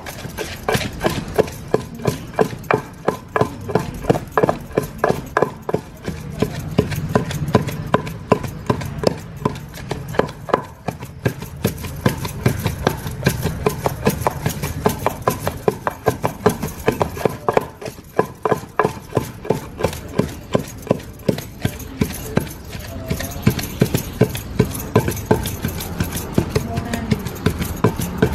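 Steady run of short, sharp knocks by hand, about three a second, from roti and chutney being made: dough or chutney being worked by hand.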